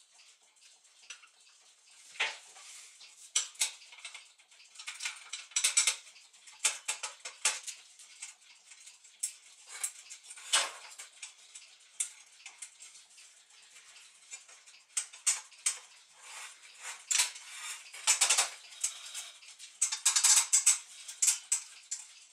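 Irregular small metallic clicks and taps of brass clock-movement parts being handled, as the top plate of a Gustav Becker clock movement is fitted onto its pillars, with several louder clusters of clinks.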